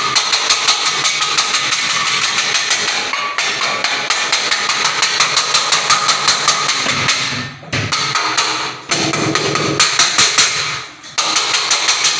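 Loud, rapid rhythmic banging, several sharp strikes a second, with short breaks about seven and a half, nine and eleven seconds in, typical of a metal vessel being beaten to drive off a wild elephant.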